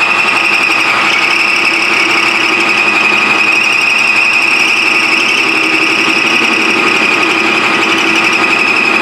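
Metal lathe running steadily with a high, even whine, turning a stainless steel shaft.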